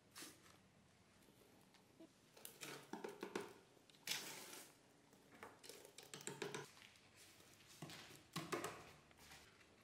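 Short bursts of gritty scraping and soft knocks as damp sand is worked and packed down with a stick in a plastic bucket, coming in several separate spells.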